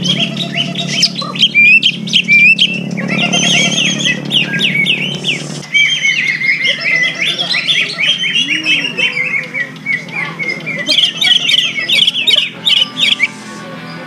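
Cucak ijo (green leafbird) song: loud, fast runs of sharp chirps and whistles, over a low steady hum. The song breaks off about a second before the end.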